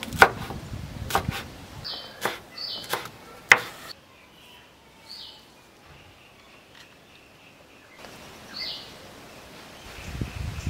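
A steel cleaver chopping celery leaves on a wooden cutting board: about eight sharp chops over the first four seconds. After that, short high bird chirps come and go over quiet outdoor background.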